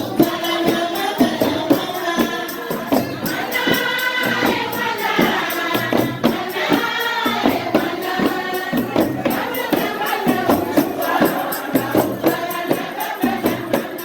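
Traditional Algerian wedding music: several voices singing together over a quick, steady beat of hand percussion.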